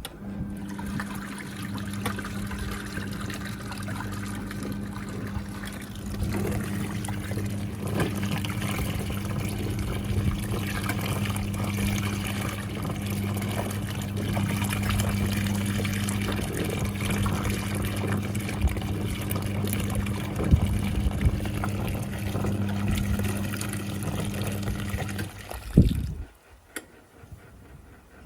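National NA9450PN compact pulsator washing machine running: a steady motor hum over swishing, churning water. It cuts off with a click about 26 seconds in and starts again just before the end.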